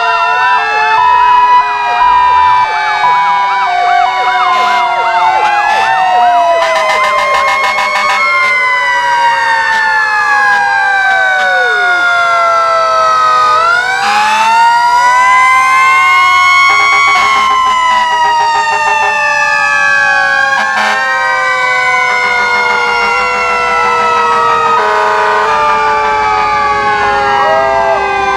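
Several fire truck sirens wailing at once as the trucks drive past. One siren's long, slow falling wail climbs back up sharply about halfway through, over other sirens sweeping up and down, with a few short buzzy blasts among them.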